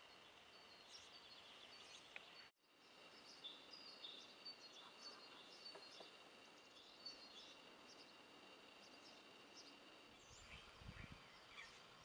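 Faint outdoor ambience of small birds chirping and twittering over a steady faint high tone, with a brief break in the sound about two and a half seconds in. Some low bumps come in near the end.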